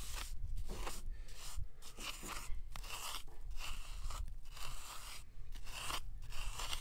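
A rounded wooden stick scraping along part-set lime mortar in the joints of a stone wall, in quick gritty strokes of about two a second. The mortar is firm enough to take a hard finger-press, so the stick is stripping its top layer to bring the stone faces back out.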